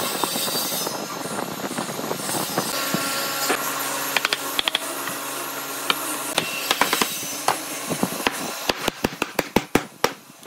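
Workshop tool sounds: a machine running steadily through the middle, with occasional knocks, then a quick series of sharp knocks near the end.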